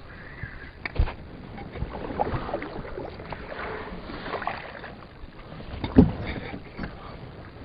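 Kayak moving on the water, with light sloshing and small knocks and rattles on board. Two sharper thumps stand out, one about a second in and the loudest about six seconds in.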